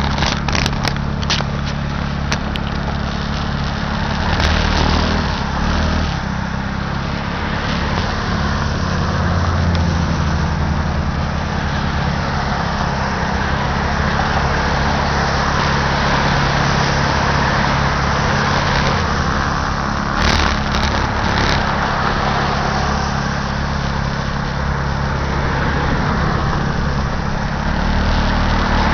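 2006 Baja SC50 moped's small engine idling steadily, with cars passing close by on the wet road.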